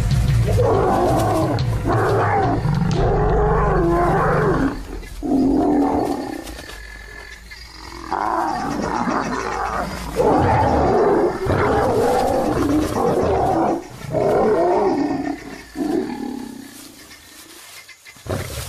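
Male lions snarling and roaring at each other in a fight, in several rough bouts with short pauses, dying down near the end. This is the aggression of the pride male driving off his grown son.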